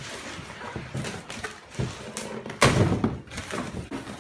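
Large cardboard shipping box being opened by hand: flaps rustling and bending, with a loud thump about two and a half seconds in and another right at the end.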